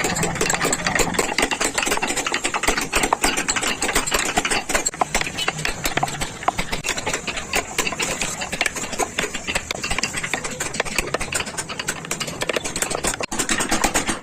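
Carving tool working a wooden vase, with a dense, rapid rattle of ticks.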